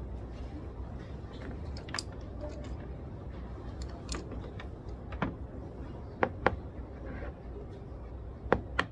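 Library ambience: a steady low hum with scattered sharp clicks and taps, the loudest coming as two quick pairs after about six seconds and near the end.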